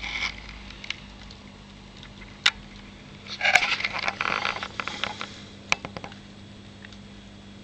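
Camera handling noise: a few sharp clicks and a short rustling scrape around the middle, over a steady low hum.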